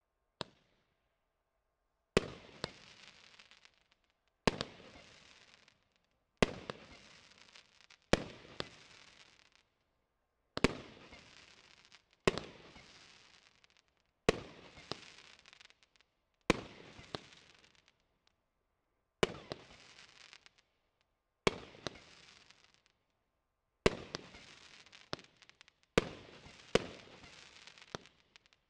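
Triplex TXB755 X-Energy firework cake firing its shots one at a time, about every two seconds. Each shot is a sharp bang followed by a second or so of crackling that dies away.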